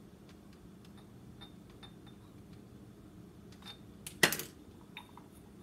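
Small hard craft pieces clicking and tapping on a countertop as they are handled, with one sharp knock about four seconds in and a few lighter clicks after it.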